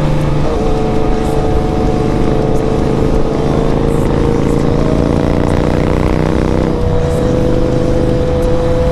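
Sport motorcycle engine pulling at speed, its note rising slowly, over a steady rush of wind noise. The engine note breaks briefly about two-thirds of the way through, then carries on.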